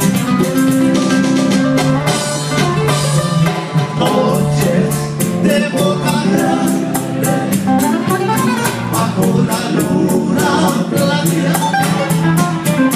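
Live Latin trio music: acoustic guitars and a small lead guitar (requinto) picking a melody over bass and percussion with a steady beat, an instrumental passage just before the sung verse comes in.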